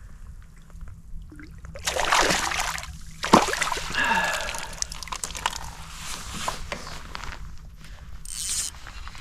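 Water sloshing and handling noises in irregular bursts, with a sharp click a little over three seconds in.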